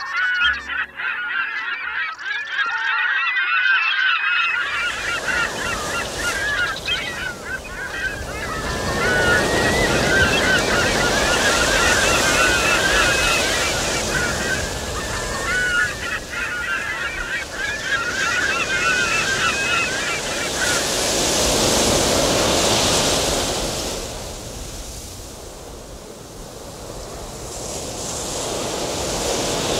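A flock of birds calling together in a busy, overlapping chatter of squawks, over surf and wind. The surf swells and fades in waves. The bird calls stop about two-thirds of the way through, leaving only the surf.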